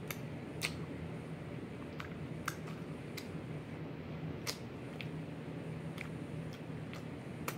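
Wet mouth smacks and finger-licking clicks while eating, a handful of short sharp smacks at irregular intervals.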